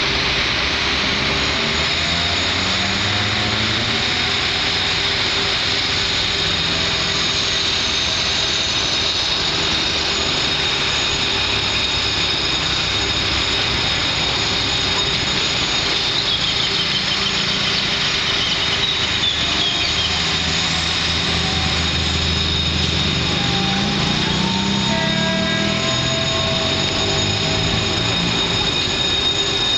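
General Motors GT22 diesel-electric locomotives running at a distance, their low engine drone stepping up and down in pitch as they pull away from the station, under a steady hiss.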